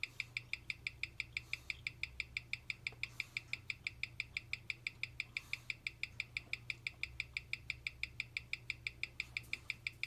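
Mechanical watch movement ticking at 21,600 beats per hour, six even ticks a second, picked up by a timing machine's microphone, with a faint steady hum underneath. The freshly fitted movement is running well, gaining about 3 to 4 seconds a day.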